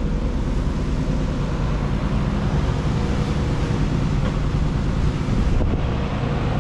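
Non-turbo Nissan 300ZX V6 engine idling steadily.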